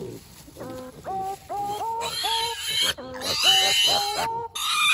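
Kunekune piglets squealing several times, loudest a little over three seconds in and again near the end, over background music with an even run of short notes.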